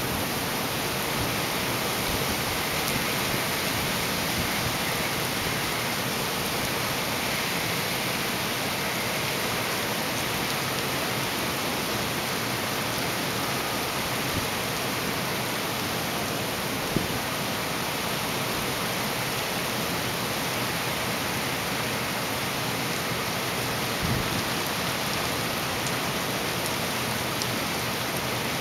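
Hurricane rain falling steadily as an even hiss, with a couple of brief knocks part way through.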